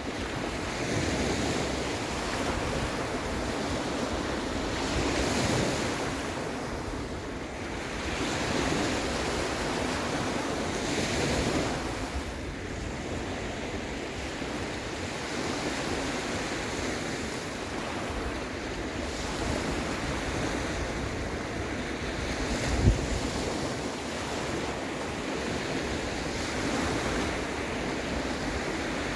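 Sea waves washing in and drawing back, the surf swelling every few seconds, with wind on the microphone. A single brief low thump comes about three quarters of the way through.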